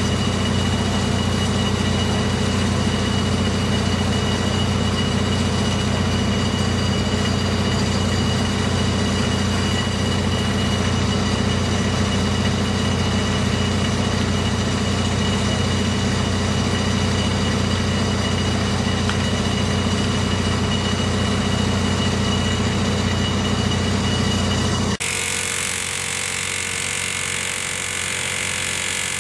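An engine running steadily with a deep hum, which cuts off abruptly near the end into a fainter, hissier steady hum.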